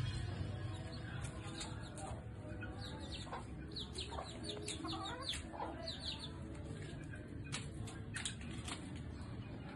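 Young gamefowl chickens peeping, many short high chirps that fall in pitch, with some lower clucking among them.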